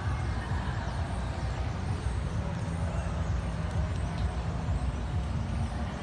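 Outdoor city park ambience: a steady low rumble of distant road traffic, with no single event standing out.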